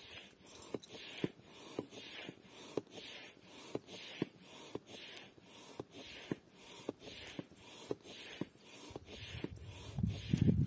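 Hand air pump inflating an inflatable tent: a regular breathy whoosh of air with a small click on each stroke, about two strokes a second. A louder low rumble joins near the end.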